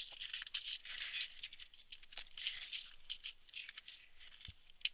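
Stainless steel wool being pushed by hand into a plastic bubbler chamber: faint, scratchy crinkling, with a soft knock near the end.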